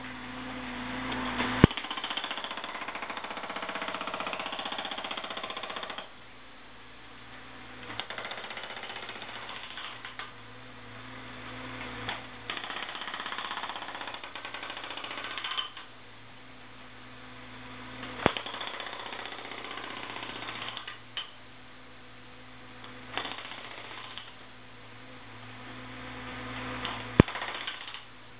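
Hydraulic breaker (concrete pecker) on a Cat 300.9D mini excavator hammering a concrete floor with rapid blows. It runs in five bursts of a few seconds, with pauses between. Sharp clanks come at several of the starts and stops, and the excavator's engine runs steadily throughout.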